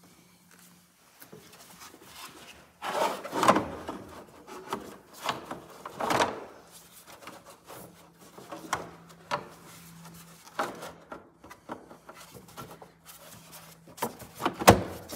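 Plastic engine cover of a BMW N52 being pushed back down over its rubber-grommet mounts by hand: scattered rubbing, clicks and knocks of plastic, with the loudest knocks about three and a half, six and fourteen and a half seconds in.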